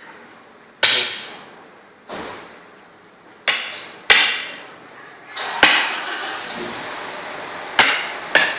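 Makruk pieces being set down on the board: about seven sharp clacks at uneven intervals, each ringing out briefly, two of them close together near the end.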